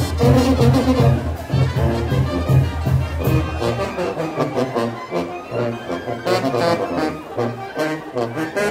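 Brass band playing a lively dance tune, with a pulsing bass beat that thins out about halfway through while the trumpets and trombones carry on.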